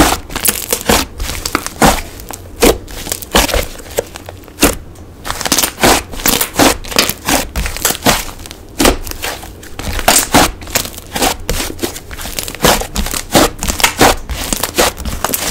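Slime being pressed and squished by hand, giving irregular sharp crackly pops, a few each second.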